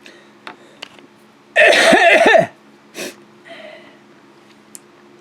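A man's loud, harsh cough-like outburst about a second and a half in, lasting about a second, followed by a shorter one about a second later. A few faint clicks come before it.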